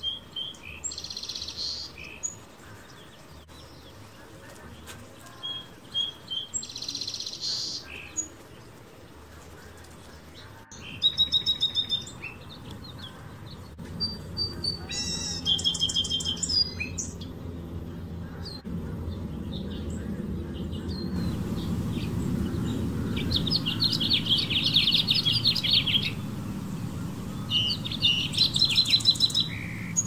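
Small backyard songbirds chirping in short bursts of high calls and quick trills, with a longer run of rapid warbled notes about 23 seconds in. A low background rumble builds through the second half.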